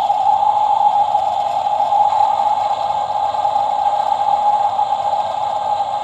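Animatronic coffin prop playing its sound effect, a steady muffled rushing noise with no clear pitch or beat.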